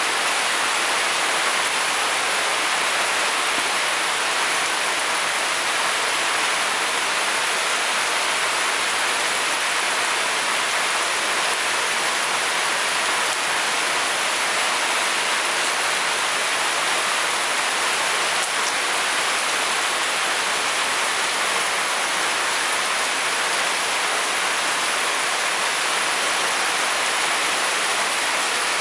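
Heavy rain falling steadily, a dense, even hiss that doesn't let up.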